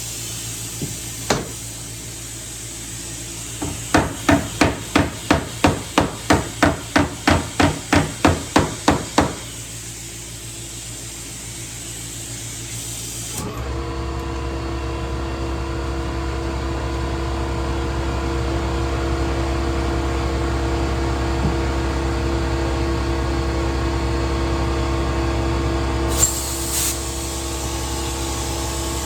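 A quick run of about seventeen hammer blows, about three a second, on car body sheet metal. About halfway through, a steady machine hum with a low drone starts and keeps running.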